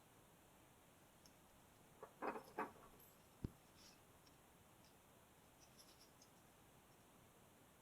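Faint scraping and small clicks of a homemade lock pick and tensioner working in a Commando padlock's keyway, with a short scratchy patch about two seconds in and one sharp click about three and a half seconds in. This comes as the pins are being reset out of a false set and picked again.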